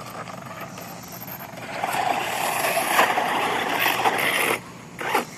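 Radio-controlled truggy running over dirt: a rush of tyre and drivetrain noise swells about a second and a half in, holds, then cuts off suddenly near the end.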